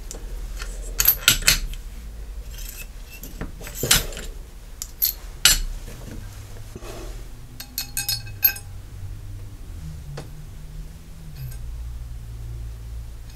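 Metal-on-metal clinks and taps as a loaded rifle cartridge is handled in a steel bullet-seating die and dropped into a bare rifle barrel's chamber, to check whether the bullet still touches the lands. The sharp clicks are spread out, with a quick run of ringing clinks about two-thirds of the way through.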